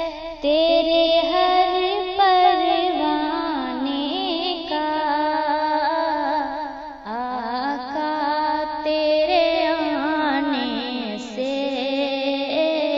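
A woman singing an Urdu naat, a devotional song, in slow, ornamented melodic lines with wavering pitch, breaking off briefly about half a second in and again about seven seconds in.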